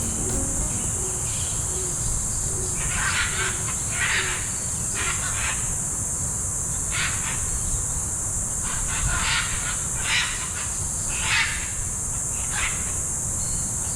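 Steady high-pitched insect drone, with a bird giving short calls about a dozen times at irregular intervals over it, and a low steady rumble underneath.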